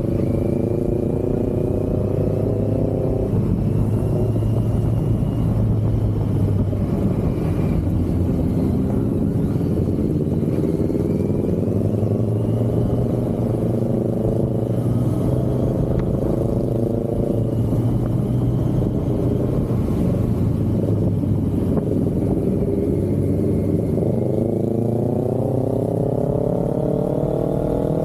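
Kawasaki Z900 SE's inline-four engine running under way on a ride, its pitch rising several times as it accelerates and dropping back between rises.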